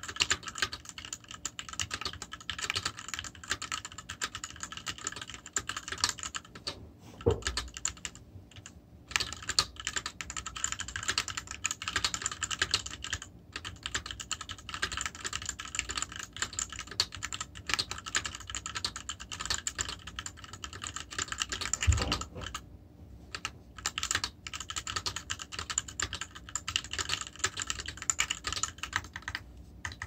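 Fast, continuous typing on a mechanical keyboard with Gateron Yellow linear switches: a dense run of key clacks with a couple of short pauses. A dull, heavier thump stands out about a quarter of the way in and again, louder, about three quarters in.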